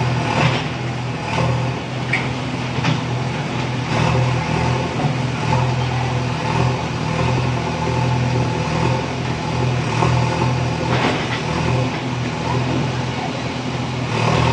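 JCB 3DX backhoe loader's diesel engine running steadily under load while its backhoe bucket works at a brick wall. Several knocks and clatters of masonry come through, mostly in the first few seconds, again about four seconds in and about eleven seconds in.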